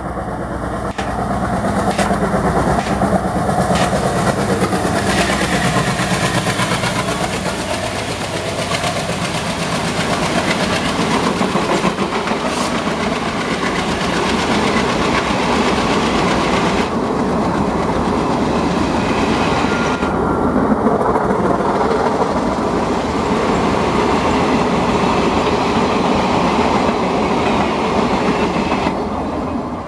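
ALCo diesel locomotive passing, its engine note dropping in pitch as it goes by. It is followed by the steady rumble and clickety-clack of a long rake of passenger coaches rolling past, easing off near the end.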